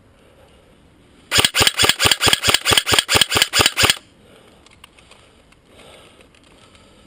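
G&G blowback AK47 airsoft electric rifle firing a rapid string of about fourteen shots, about five a second, each with the clack of the blowback mechanism. The burst starts about a second in and stops after about two and a half seconds.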